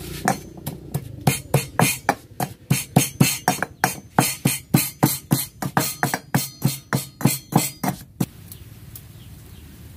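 Metal pestle pounding bird's eye chillies with salt and seasoning in a metal mortar: a steady run of sharp strikes, about three a second, that stops abruptly about eight seconds in.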